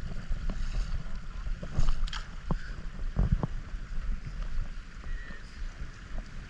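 Water sloshing and splashing as people wade through a creek, with a steady low rumble underneath.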